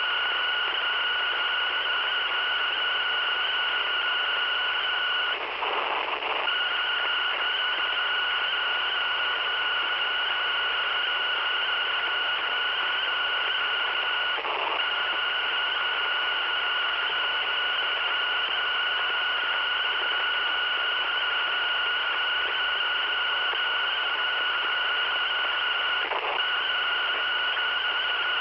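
Radio with a broken tuner and a damaged capacitor giving out hiss and a steady high-pitched whistle-like tone, which breaks off for a moment three times.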